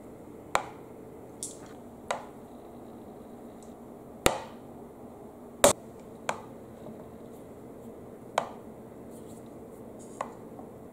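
Glass marbles set down one at a time onto a perforated board, each landing with a sharp click and a brief ring; about eight clicks at uneven intervals, the loudest a little past the middle.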